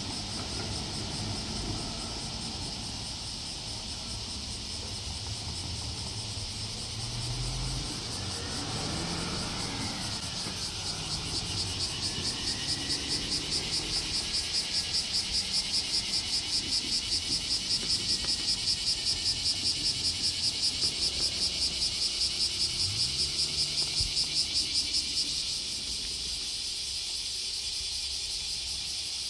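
A chorus of cicadas buzzing high and steady, which swells into a loud rapid pulsing of about three pulses a second about twelve seconds in and drops back a few seconds before the end. Under it runs a low engine rumble.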